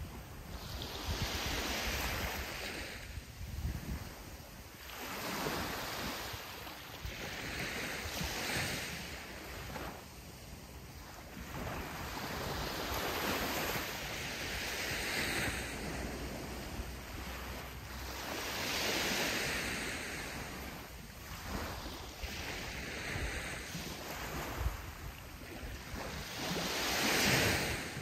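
Sea waves breaking on a sandy beach, each wave a surge of surf hiss that swells and fades over a few seconds. Seven or eight waves break, the loudest near the end.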